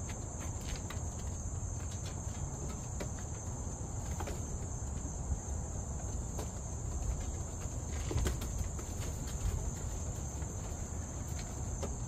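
Steady high-pitched insect chorus, with a low rumble underneath and a few faint knocks as the loft's screen door is opened.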